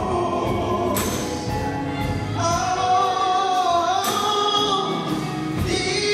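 Live gospel music: a male vocal group sings a lead line with harmony behind it, backed by a band with drums and ringing cymbal strokes.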